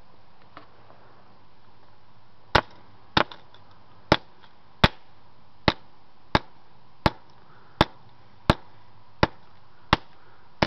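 An old LG phone being struck over and over to smash it: about a dozen sharp, evenly spaced blows, roughly three every two seconds, starting after a short pause.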